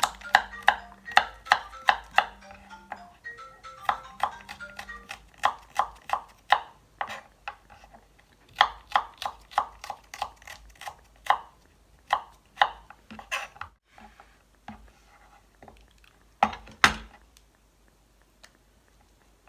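Kitchen knife chopping garlic on a cutting board, quick regular strikes at about three a second that stop near the end; faint background music under the first few seconds.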